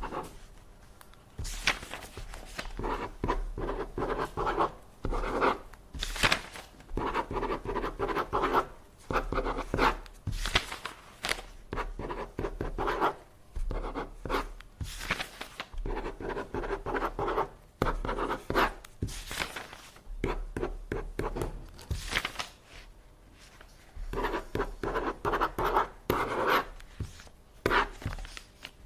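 Scratching and rubbing on paper in irregular runs of short strokes, with a few brief pauses.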